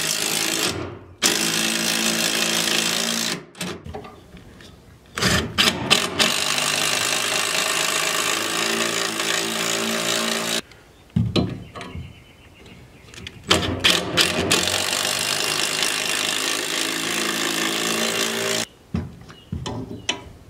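Cordless impact driver hammering screws through a steel hold-down bracket into a wood stud, with no pilot holes drilled. It runs in several long stretches of a few seconds each, with short pauses and a few clicks between them.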